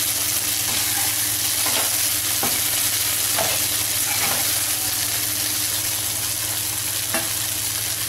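Steel spoons scraping and tapping now and then against a non-stick kadai as cooked basmati rice is gently folded into mushroom masala, over a steady hiss.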